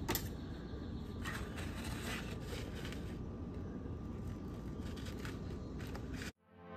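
Faint handling noises, light rustling and a few soft clicks, as a paper napkin and hot arepas are handled and pulled open, over a steady background hiss. The sound cuts off suddenly near the end.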